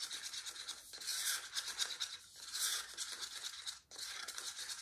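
A stick stirring thick acrylic pouring paint in a small cup, scraping quickly and rhythmically against the cup's sides and bottom, with a few brief pauses.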